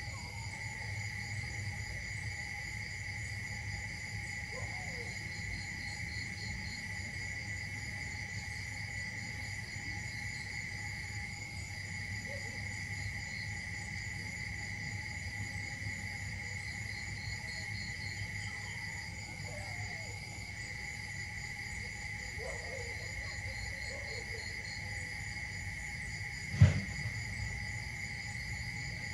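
Steady insect chorus, a constant high buzz with faster pulsing trills above it, with a few faint short chirps scattered through. One sudden loud thump near the end.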